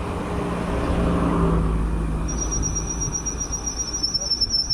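A car passing close by, its engine and tyre noise swelling and easing off over the first few seconds. From about two seconds in, a cricket's high, rapidly pulsing trill joins and carries on.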